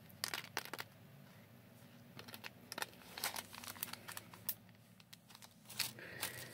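Small clear plastic bead bags crinkling and rustling as they are handled, a few quick crinkles at a time with short pauses between.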